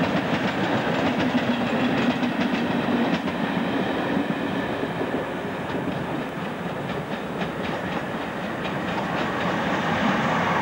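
Train running on jointed track, a steady rumble broken by rapid clicks of wheels over rail joints in the first few seconds and again midway.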